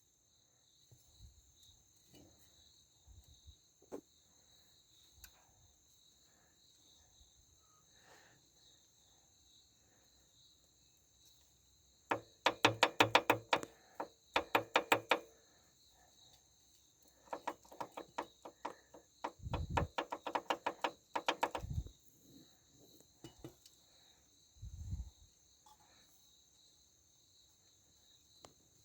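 Nissan SR18 engine knocking rapidly in two spells as it is revved, a rattling knock that comes with acceleration. The knock comes from the spun #3 connecting-rod bearing and is easily mistaken for the timing-chain tensioner. Crickets chirp steadily throughout.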